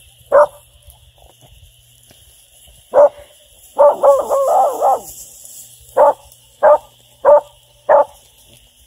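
Hound puppy barking: a single bark near the start and another about three seconds in, then a warbling run of barks lasting about a second, then four evenly spaced barks near the end.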